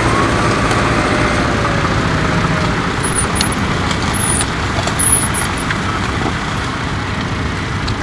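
Tractor engine running steadily under load while pulling a plough through the soil. A few short, high chirps come through about halfway.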